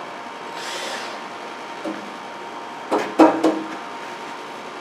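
Metal clunks and knocks as the metal case of a 48-volt Magnum sine-wave inverter is set down and pushed into place on top of its breaker enclosure. A small knock comes near the middle, then a quick cluster of clunks about three seconds in, the loudest with a short ringing.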